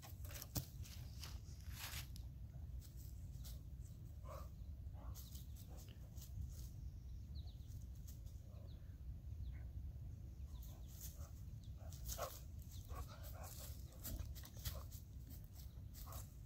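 A boxer puppy moving about on dry fallen leaves and twigs, making scattered faint crackling and rustling with its paws, plus a few short, faint dog noises.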